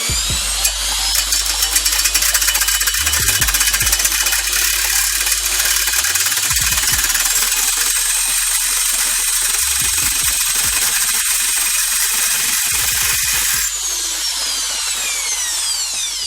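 Homemade angle grinder's electric motor spinning up, running at a steady high whine, then switched off about three seconds before the end and winding down with falling pitch.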